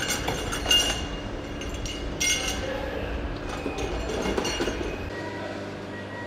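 Car assembly-line noise: several sharp metallic clinks and clatters over a steady machinery hum, with the low rumble dropping away about five seconds in.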